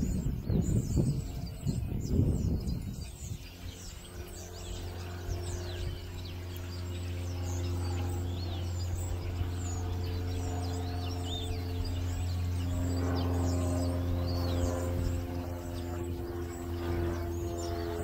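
A large flock of birds in a bare tree, many calling at once in a steady chorus of short chirps and squeals. Low rumbling in the first three seconds gives way to a steady low hum with a few pitched tones underneath.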